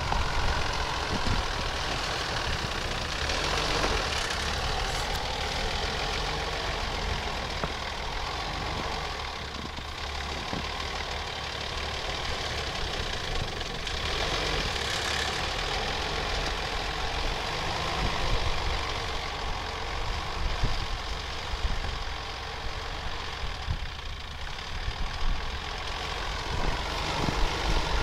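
Off-road 4x4 engine running under load as it pushes uphill through deep, untracked snow, its level rising and falling a little with the throttle.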